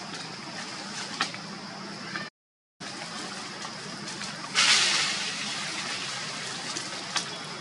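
Outdoor forest ambience: a steady high-pitched hiss with scattered dry-leaf rustles and clicks. The sound cuts out completely for about half a second a little over two seconds in. A loud hissing surge comes in near the middle and fades over the next couple of seconds.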